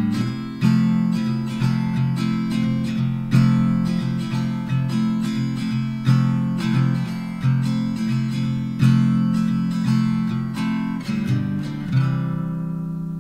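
Acoustic guitar background music: chords struck in a steady rhythm, with a final chord about twelve seconds in that rings out and fades.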